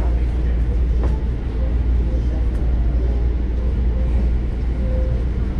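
Steady low rumble of a light rail train heard from inside the car, with a single sharp click about a second in.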